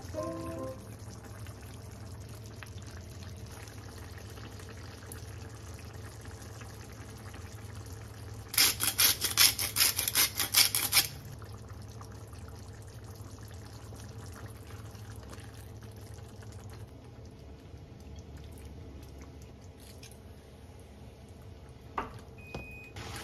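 Meat sauce simmering in a frying pan with faint bubbling. About a third of the way in, a seasoning shaker is shaken over the pan in a burst of quick rattles, about four a second for two to three seconds.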